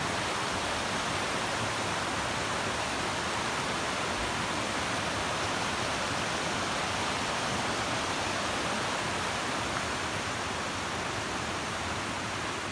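Steady rushing of a stream, an even wash of water noise that fades out at the end.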